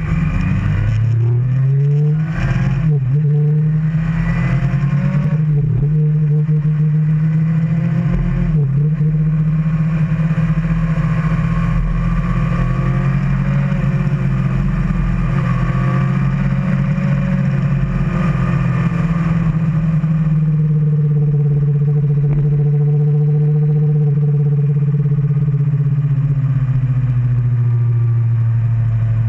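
Kawasaki Ninja ZX-10R's inline-four engine running under way, loud and close. Its pitch dips briefly three times in the first nine seconds, then holds a steady drone that falls slightly in pitch after about twenty seconds.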